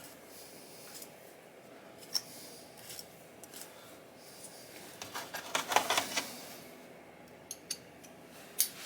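Small metal parts clinking and rattling as screws are handled and sorted by hand: scattered single clicks, with a busier burst of rattling in the middle.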